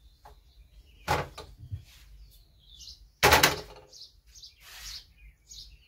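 A steel kadhai set down on a gas stove's metal grate: one loud metal clank about three seconds in, after a softer knock about a second in. Birds chirp in the background throughout.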